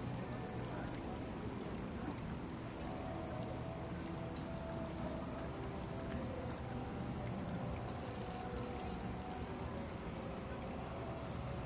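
Outdoor ambience: a steady high-pitched insect drone over a low background rumble, with no distinct events.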